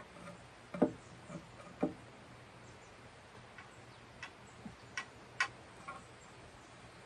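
A handful of light taps and clicks from a pencil and hands working against a ginkgo wood board while it is being marked out, the loudest in the first two seconds and lighter, sharper clicks later.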